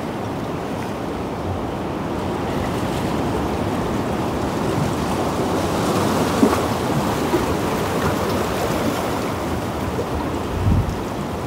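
Sea waves washing against shore rocks: a steady rush of surf that swells a little about halfway through.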